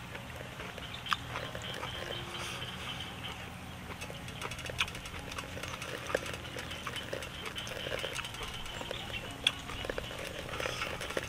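Close-up eating sounds: chewing and slurping of hotpot food, with three sharp clicks of chopsticks against a porcelain bowl about a second, five seconds and nine and a half seconds in, over a steady low hum.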